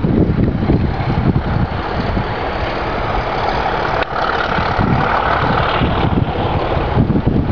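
Class 31 diesel locomotive's English Electric V12 engine working under power as the train moves off, a loud, uneven low throbbing, with a higher rushing tone swelling for a couple of seconds mid-way.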